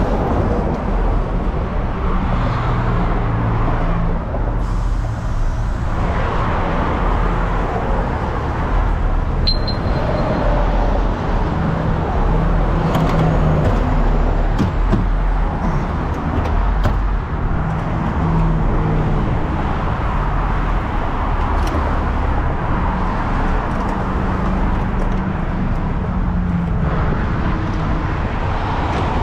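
A heavy truck's diesel engine running steadily, with traffic passing; a short metallic clink about ten seconds in.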